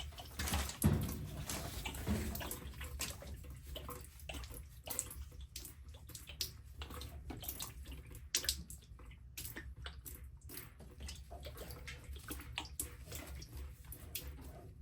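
Water dripping and trickling in a washing machine tub, with scattered small clicks and knocks over a steady low hum.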